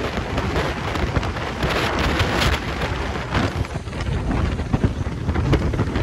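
Wind buffeting the microphone and water splashing as a bass boat runs fast across choppy waves, a loud, constant rush with crackling spray.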